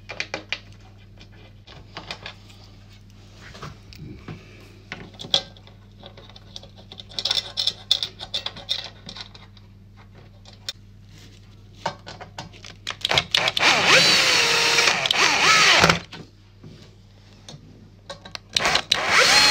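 Power drill-driver driving screws into the underside of a mirror cabinet: scattered knocks and clicks of handling, then a loud run of about two seconds whose pitch rises and falls as the motor speeds up and slows, and a second short run near the end.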